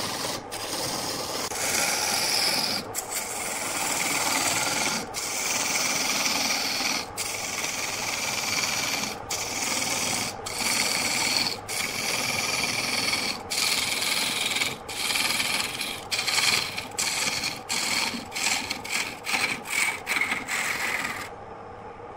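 A lathe turning tool cutting into a large spinning wood blank: a loud, continuous rasping of shavings being peeled off, broken by brief gaps as the tool lifts. Near the end the cuts come short and quick, then stop, leaving only the quiet lathe running.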